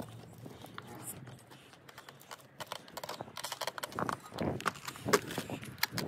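Boots and gloved hands on the rungs of an aluminium ladder, climbing down: quiet rustling at first, then from about three seconds in a run of irregular knocks and clunks.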